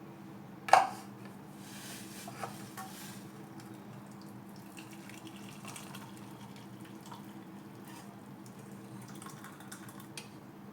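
Hot liquid being strained from a cooking pan into a glass: a sharp clank of the vessel about a second in, then faint pouring and dripping with a few small clinks.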